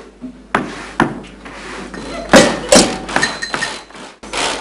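Irregular sharp knocks and bangs from improvised percussion on household items, some strikes leaving a short ring. The loudest pair comes about two and a half seconds in.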